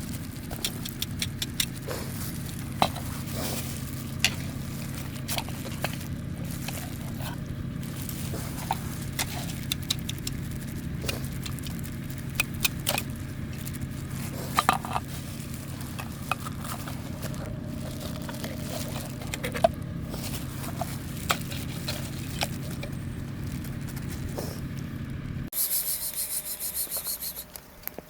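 Steady low hum of an idling vehicle engine, with scattered sharp clicks and scrapes over it. The hum cuts off suddenly near the end, and a brief high buzzing follows.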